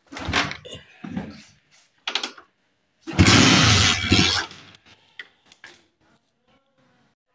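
A small motorcycle being kick-started: a few short kicks, then the loudest, longer burst about three seconds in, after which only faint clicks remain.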